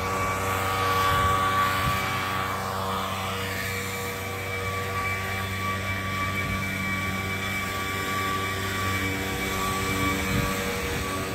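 Gas backpack leaf blower running steadily at one speed: a constant engine hum with a high whine above it.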